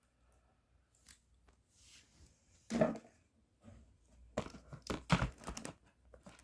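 Handling noises of RC truck wheels and chassis being moved about: scattered light clicks, knocks and rustling, with a louder knock about three seconds in and a quick run of them a little later.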